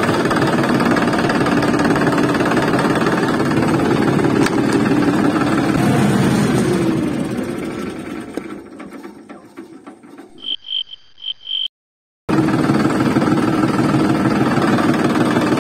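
Steady engine-like running sound for a toy tractor pulling a trolley; it fades out, five short high beeps follow in quick succession, it cuts to silence for a moment, and the loud running sound starts again.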